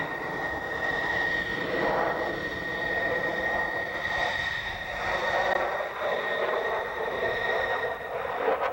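Jet noise from a twin-engine Sukhoi Su-37 fighter flying display manoeuvres: a broad rushing roar that swells and eases several times, with a steady high whine over it.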